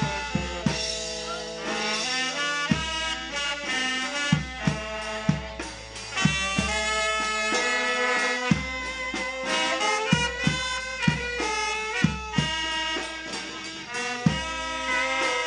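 A small brass band playing a melody: several saxophones and a trumpet in sustained notes over a sousaphone, with regular drum beats.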